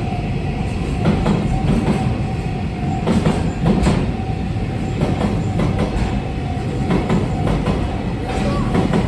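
Push-pull freight train running past: a steady low rumble of wheels on rail with irregular clacks over the rail joints, and a steady whine over it.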